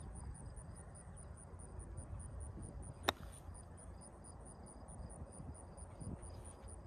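A wedge striking through bunker sand in one short, sharp hit about three seconds in, splashing the golf ball out of the sand. Behind it, insects chirp in a steady high pulse of about five a second.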